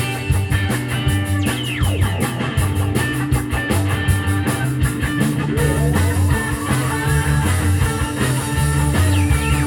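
Live psychedelic rock band playing an instrumental passage: electric guitars over a steady bass line and drum kit.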